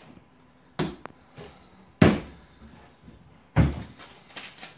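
Kitchen cupboard and spice jars: three sharp knocks, the middle one the loudest, as jars are taken off the cupboard shelf and set on the counter and the cupboard door is shut.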